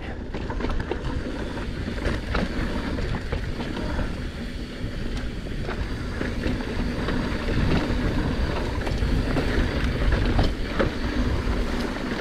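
Mountain bike rolling over a dirt trail: a steady rumble of tyres on the ground, with scattered clicks and rattles from the bike. It gets louder about two-thirds of the way through.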